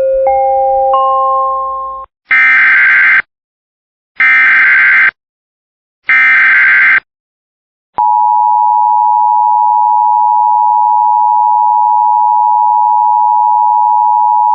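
Emergency Alert System tones. A short electronic chime of stacked steady tones comes first, then three one-second bursts of SAME header data screech about two seconds apart. From about eight seconds in, the steady two-tone EAS attention signal sounds.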